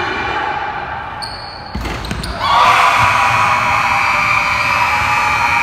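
A basketball bouncing on a hardwood gym floor over crowd noise, then about two and a half seconds in a gym scoreboard horn comes on loud and steady and keeps sounding.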